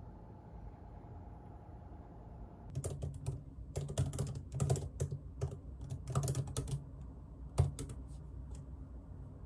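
Typing on a computer keyboard: irregular runs of key clicks that start about three seconds in and stop shortly before the end.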